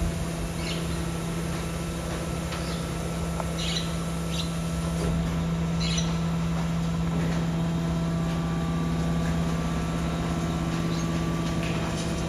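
Steady electric hum of a BYD electric garbage truck's hydraulic pump motor running, with a few short high squeaks in the first half.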